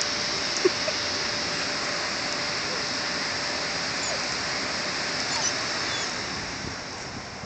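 A steady rushing hiss of noise that eases off slightly near the end, with one faint short squeak under a second in.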